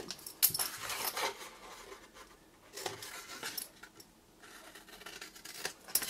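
Scissors snipping through cardstock, with the card rustling as it is handled, in a couple of short bursts and a few small clicks near the end.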